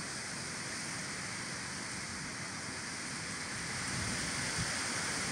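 Steady rush of flowing chalk-stream water.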